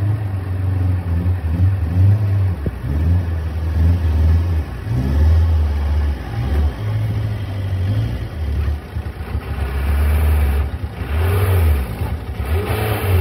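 Mitsubishi dump truck's diesel engine idling: a low, uneven rumble.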